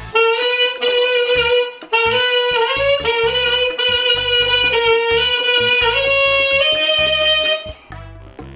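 Saxophone playing a short melody of long held notes that steps upward near the end, then stops.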